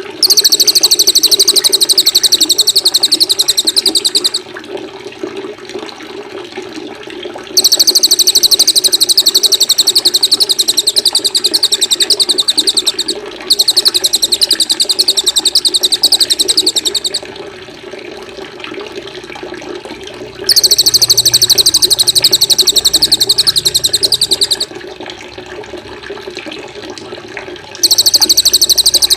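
Small songbird's very fast, high-pitched buzzing trill, played as a masteran tutor song for training white-rumped shamas. It comes in five bouts of about four seconds each, with pauses between, over a steady sound of running water.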